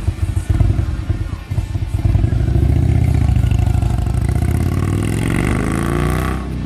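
Heavy V-twin touring motorcycle carrying two people, pulling away from the kerb and accelerating down the street, its low engine beat revving up. The sound drops off abruptly near the end.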